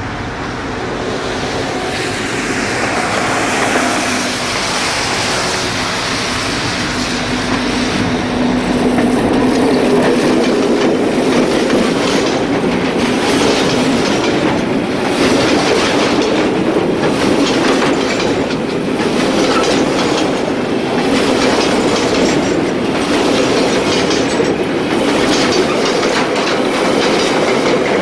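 Diesel locomotive and its wagons passing: the engine's steady drone grows louder over the first several seconds, then the wheels click over rail joints in a regular clickety-clack.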